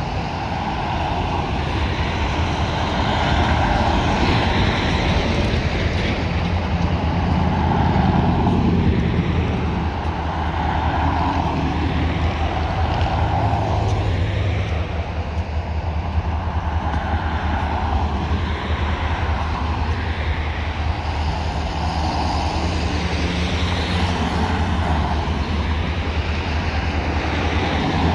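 Freight train's EMD SD40-2 diesel locomotives running with a steady low drone, mixed with road traffic passing close by, which swells a few times.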